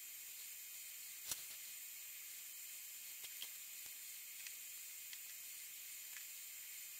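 Steady faint hiss of a quiet recording, with a few soft clicks and taps as the clay figure is handled, the clearest about a second in.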